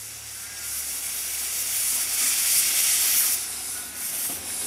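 Miniature live-steam locomotive hissing, with steam blowing out low at the front from the cylinder drain cocks as it moves off. The hiss grows steadily louder.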